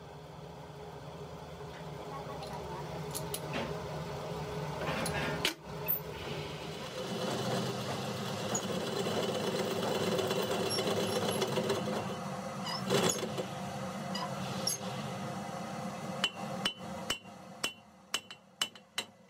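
Metal lathe running with a truck drive shaft turning in it, a steady machine hum that builds up over the first seconds. A couple of single sharp knocks are heard, and near the end the hum fades into a quick string of short clicks.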